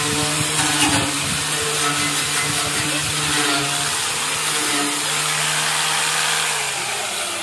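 Corded electric power tool running steadily against rusty metal, with a steady motor whine over a rough scraping hiss as it strips rust off the tricycle's steel sidecar frame. Near the end its pitch drops as it begins to wind down.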